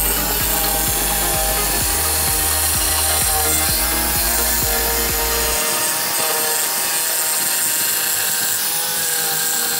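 Electric jigsaw sawing steadily through 18 mm plywood.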